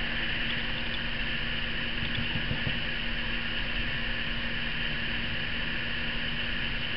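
Steady background hum and hiss with no distinct event: room tone.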